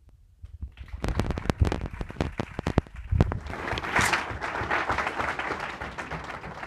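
Audience applauding. It starts about half a second in with a few loud, close handclaps, then swells into dense, steady applause from many hands.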